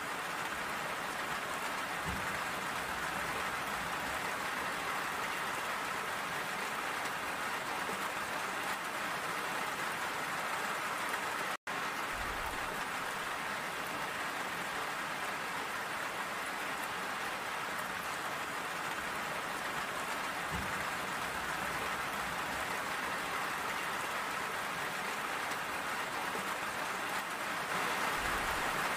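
Steady rain falling, with a few soft low thumps scattered through it. The sound cuts out for a split second a little before halfway, and the rain gets slightly louder near the end.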